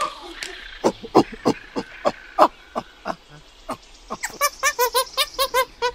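Monkey calling: a string of short, sharp calls, then from about four seconds in a fast run of pulsed chattering calls, about five a second.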